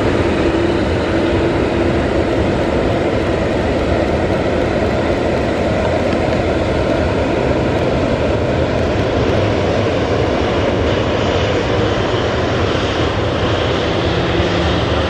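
Boeing 787 Dreamliner's GEnx jet engines at low taxi thrust as the airliner taxis, a loud steady rushing hum. A higher whine comes in near the end as the engine nacelle turns toward the listener.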